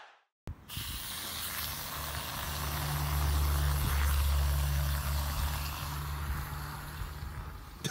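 Aerosol can of whipped cream hissing as cream is sprayed onto a paper plate, over a steady low hum that is loudest in the middle.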